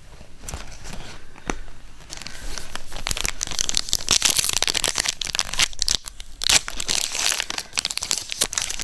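A few light clicks, then from about three seconds in a trading-card pack wrapper being torn open and crinkled.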